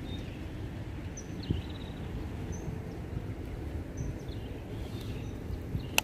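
Wind rumbling on the microphone, with small birds giving short high chirps every second or so. A single sharp click right at the end.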